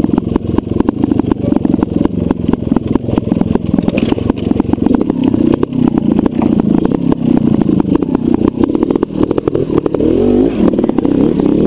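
Trials motorcycle engine running at low revs and blipped as the bike picks its way over rock, with clattering knocks throughout; near the end it is revved up and down as it climbs a rock step.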